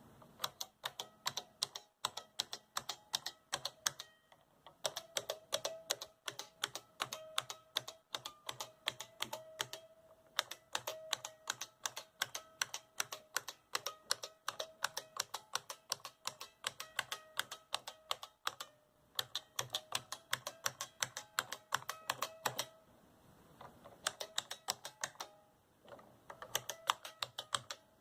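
IBM Model F "AT" keyboard's buckling-spring keys being typed on: a rapid, steady run of loud clicks with a ringing note under them, broken by a few short pauses.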